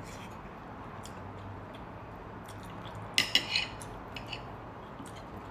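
Cutlery clinking against a plate during a meal, with scattered small ticks and a cluster of sharp clinks about three seconds in.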